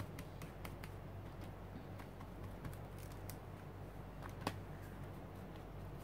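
Light, irregular tapping and clicking of an ink sponge dabbed onto a paper art-journal page, with one louder tap about four and a half seconds in, over a low steady hum.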